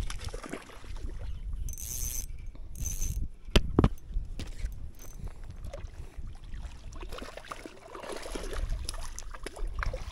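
Wind rumbling on the microphone in a small boat on the water, with two brief high whirs about two seconds in and a sharp knock about a second later.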